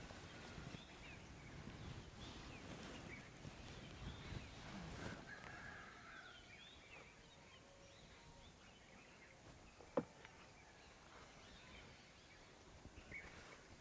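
Quiet outdoor ambience with scattered faint bird chirps and a low rustling over the first few seconds. One sharp crack stands out about ten seconds in.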